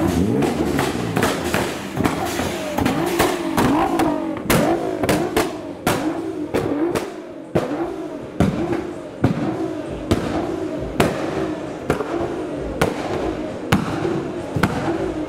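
Modified car's engine revved in repeated blips, its pitch rising and falling, with many sharp exhaust pops and bangs on the overrun.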